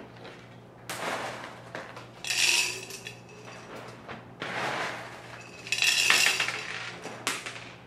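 Handfuls of LECA (expanded clay pebbles) poured into a glass vase, rattling and clinking against the glass and each other, in about four separate bursts.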